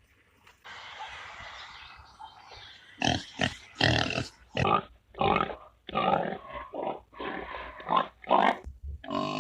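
Pigs grunting and squealing in a run of short loud calls, roughly two a second, after a couple of seconds of steady low noise.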